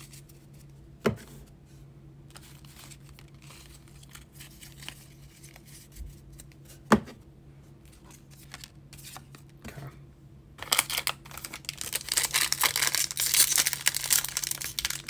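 A few sharp taps as a stack of trading cards is handled on a tabletop, then, from about two-thirds of the way in, the foil wrapper of a baseball card pack is torn open and crinkles loudly and continuously.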